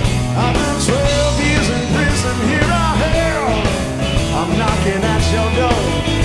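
Blues-rock band playing live: drums, bass and rhythm under a lead line of bent, wavering notes, most likely the electric lead guitar.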